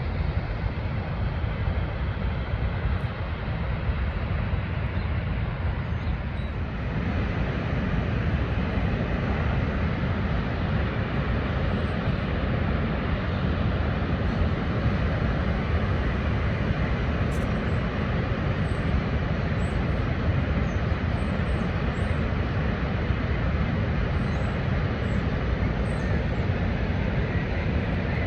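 Niagara Falls' water pouring over the falls: a steady, unbroken rumbling rush, heaviest in the low end, that grows a little brighter about six or seven seconds in.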